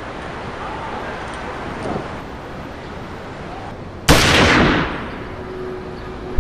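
A single loud gunshot about four seconds in, with a sudden onset and a tail that dies away in under a second, over a low, steady underscore.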